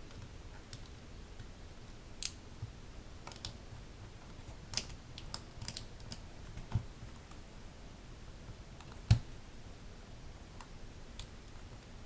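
Loose Gateron Yellow mechanical keyboard switches being handled and pressed by hand, giving a few scattered sharp plastic clicks and taps, the loudest about nine seconds in.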